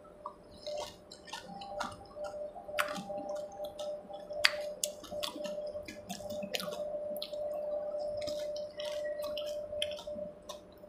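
Wet crunching and chewing of crisp pani puri shells filled with spiced water, with drips and splashes as puris are dipped into a bowl of tamarind water and lifted out, over a steady faint hum.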